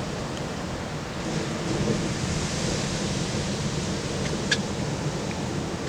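Ocean surf breaking and washing on a beach: a steady low rumble with a wave's hiss swelling about a second in and easing off past the middle. A single short sharp tick sounds about four and a half seconds in.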